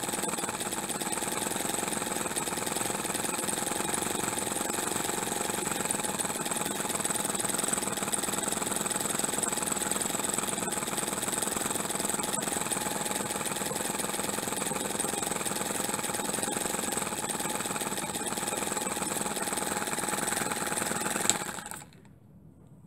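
Miniature single-cylinder four-stroke pushrod engine running steadily at a fast, even rate. About 21 seconds in it is switched off and stops within a second.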